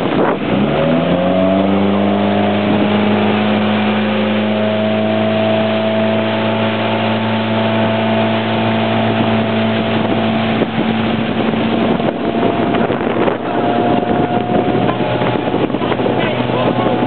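Towing motorboat's engine accelerating, its pitch climbing for about the first two seconds, then running steadily at speed under a constant rush of wind and water.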